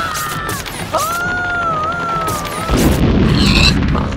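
Animation sound effects: two high, wavering cries, each held about a second and a half, then a deep boom about three seconds in.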